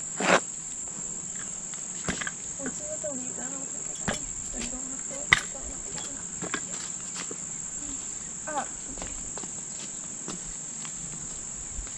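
Steady, unbroken high-pitched insect chorus. Scattered clicks and rustles of feet and hands in the weeds sound over it, the sharpest one about five seconds in.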